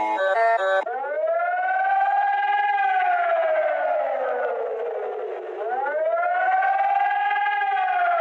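Civil defense siren wailing in slow cycles: it rises, holds high, falls slowly over a few seconds, then rises and falls again. It cuts in just under a second in, right after a pattern of stepped electronic tones stops abruptly.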